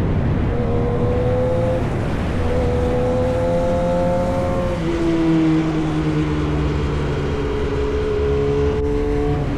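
Yamaha R1 sport bike's inline-four engine running through an SC-Project exhaust on the move. The engine note steps up near the start, climbs slowly, drops suddenly about five seconds in, then sinks gradually, over a steady low wind and road rumble.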